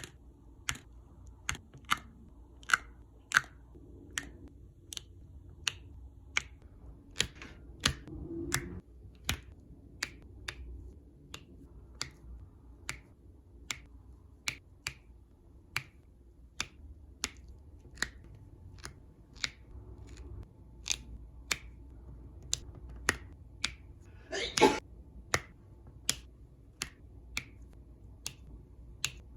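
Diamond painting pen tapping resin drills onto the canvas: sharp clicks at a steady pace, about one and a half a second. One sneeze about 24 seconds in.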